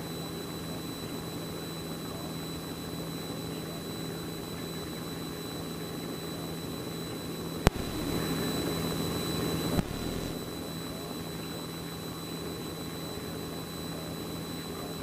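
A light airplane's piston engine droning steadily in flight, heard from inside the cockpit, with a thin steady whine over it. About eight seconds in there is a sharp click, then about two seconds of louder hiss that ends in a second click.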